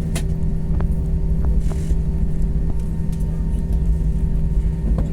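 Airbus A321 cabin noise while taxiing after landing: a steady low rumble and engine hum, with a few light clicks and a short hiss about two seconds in.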